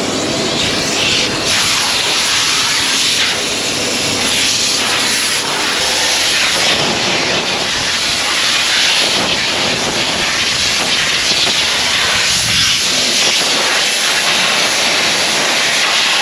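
Compressed air from an air compressor's blow nozzle, blasting in a loud, steady hiss that wavers in strength. It is blowing crop debris out of a combine's corn head.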